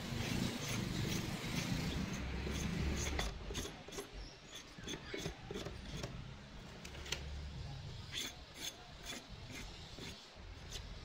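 A hand-held blade sawing and scraping along the plastic seam between a lead-acid battery's lid and case, cutting the lid open. It is a rasping scrape broken by many short, sharp clicks.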